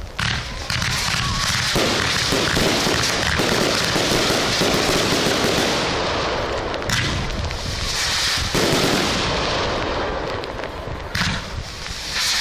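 Large fireworks display: a dense, continuous barrage of aerial shell bursts and crackling, with a few sharper bangs standing out above it.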